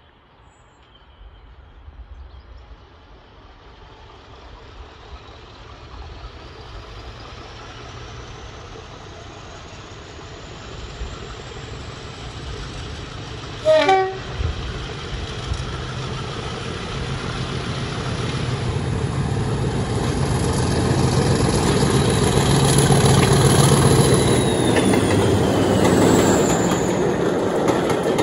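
Diesel locomotive hauling coaches approaches under power: its engine and a high whine grow louder, with the whine rising in pitch. About halfway through it sounds one short horn blast. Near the end the whine drops in pitch as the locomotive passes and the coaches rumble by.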